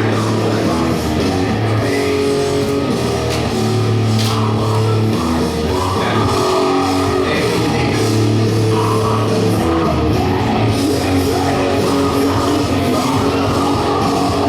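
Loud hard rock music with electric guitar, bass and a sung vocal.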